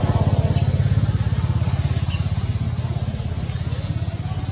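An engine running steadily nearby, a low, rapid, even throb.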